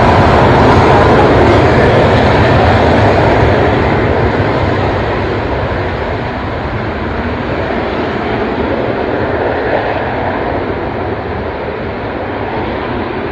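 Jet engines of military jets on the runway running, a loud steady rush that eases off a little after about four seconds.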